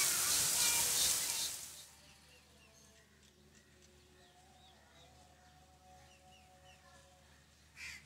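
Heavy rain hissing with short bird calls over it, cutting off abruptly about two seconds in. Afterwards faint chirps of small birds, and one short, sharp, louder call or sound just before the end.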